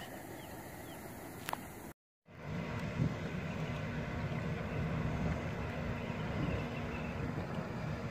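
Wind on the microphone over the steady hum of a boat motor. After a short dropout about two seconds in, the motor hum comes back louder.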